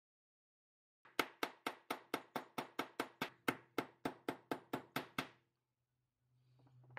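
Hammer tapping a steel pin punch in a quick run of about twenty light strikes, about five a second, driving the firing pin retaining pin into a shotgun bolt. The taps begin about a second in and stop about five seconds in, once the pin is seated.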